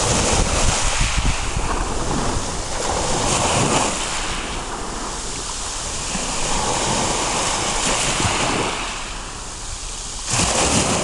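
Rough sea surf: waves breaking and washing in, surging in swells about every three seconds.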